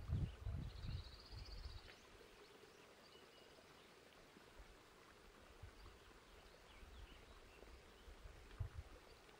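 Wind buffets the microphone with low rumbles for the first two seconds, then gives way to faint outdoor quiet. A bird gives a short high trill about a second in, and a few faint chirps follow.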